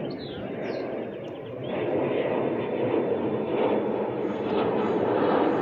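A steady distant engine rumble that grows louder about two seconds in.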